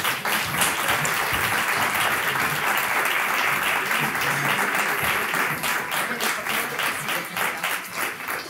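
Theatre audience applauding: dense, steady clapping that thins out near the end.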